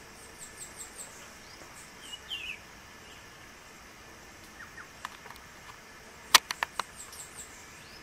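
Wild birds calling in woodland: a quick run of thin, high chirps near the start and again near the end, and a short falling note about two seconds in. A cluster of sharp clicks just after six seconds is the loudest sound.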